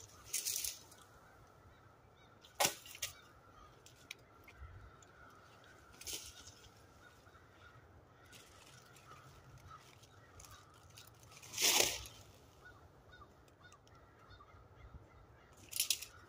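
A quiet stretch broken by a handful of short rustles and sharp cracks, the loudest about two-thirds of the way through, over a faint steady tone.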